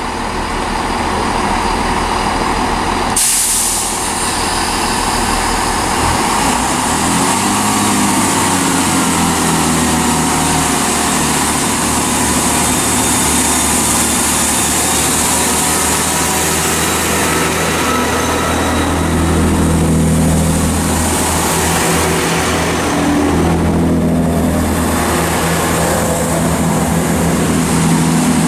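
Diesel engines of a Class 166 Turbo diesel multiple unit running as the train pulls away from a station, a steady drone whose pitch steps up about seven seconds in. The sound changes abruptly about three seconds in.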